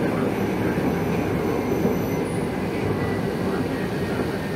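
Running noise inside a motor car of an ex-Tokyu 8500 series electric commuter train: a steady rumble of wheels on the rails and running gear, with a faint thin high whine in the first two seconds.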